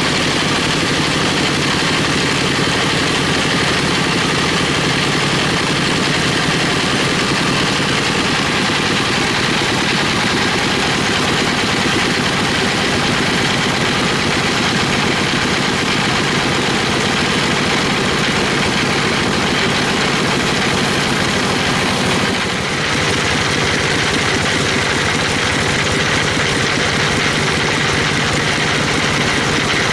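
Sawmill machinery running with a loud, steady mechanical drone, dipping briefly about three-quarters of the way through.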